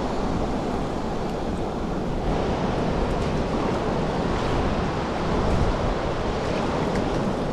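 Steady rush of a shallow, stony river flowing, with wind rumbling on the microphone.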